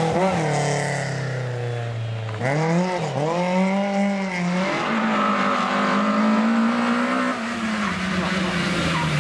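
Rally car engines working through a corner. The revs sink off the throttle for the first couple of seconds, then climb sharply with a brief dip like a gear change, hold high, and fall away near the end.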